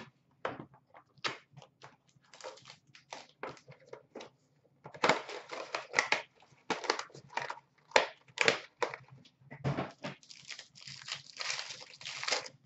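A Panini Playbook hockey card box being opened and a foil-wrapped card pack being torn open. Irregular crinkling and tearing of packaging, densest about five seconds in and again near the end.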